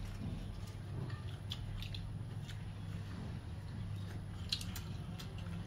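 Eating rice by hand from a metal plate: fingers squishing and mixing rice with broth, with scattered light clicks, one sharper about four and a half seconds in. A steady low hum runs underneath.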